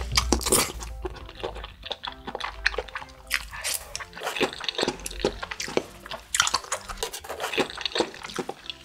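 Close-miked chewing and slurping of spicy tteokbokki: sticky rice cakes in thick sauce, with many irregular wet mouth clicks and smacks.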